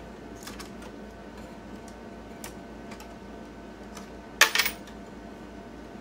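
Coins and metal parts clinking inside a slot machine's coin hopper bowl as it is handled, with a few light clicks and then a quick, loud cluster of clinks about four and a half seconds in.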